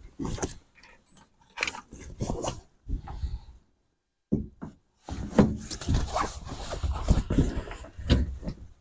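Canvas tent fabric rustling and being shifted about while tent poles are handled and fitted, in irregular bursts with a couple of short breaks just before the middle.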